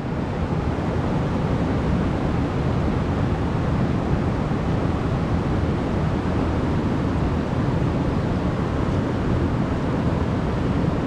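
Steady rush of a small mountain stream spilling over granite rocks into a pool.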